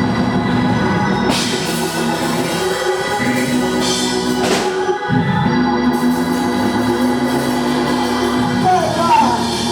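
Organ playing held chords, with cymbal crashes about one and a half and four and a half seconds in.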